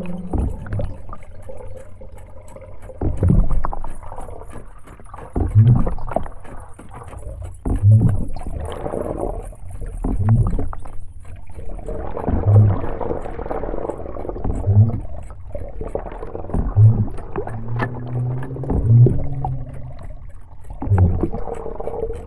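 Underwater hydrophone recording: water swishing and gurgling with a low thump about every two seconds. A held low tone that glides slightly joins near the end.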